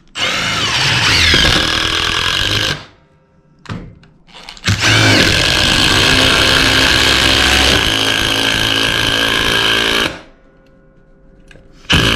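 Cordless impact drivers, a Milwaukee M18 FID2 and an 18 V DeWalt, hammering as they drive fasteners into a timber block. A run of about three seconds drives self-drilling wood screws. A run of about five seconds drives M8 bolts, and a short burst near the end finishes the last bolt.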